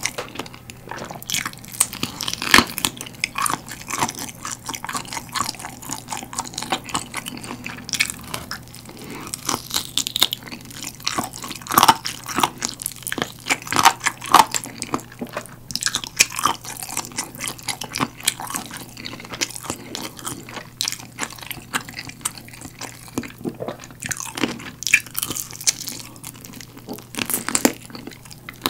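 Close-miked biting and chewing of a galbi-sauce-glazed roasted chicken drumstick, with many irregular sharp clicks.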